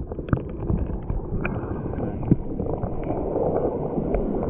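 Muffled churning and sloshing of shallow sea water heard through a camera partly under water, with a few small knocks from a gloved hand on the rocks.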